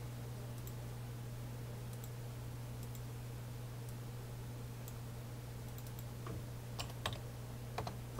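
Computer mouse clicking: faint scattered clicks, with a few sharper ones near the end, over a steady low electrical hum.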